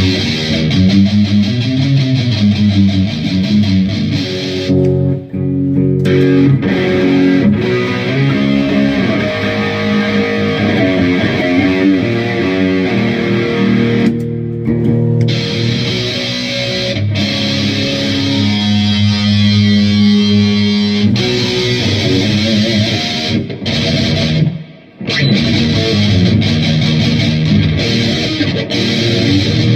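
Electric guitar, a Dean Cadillac, played through a Boss Metal Zone MT-2 distortion pedal into an Orange Super Crush 100 amp. It plays heavily distorted riffs and held notes, with short breaks about five seconds in and again some twenty seconds later.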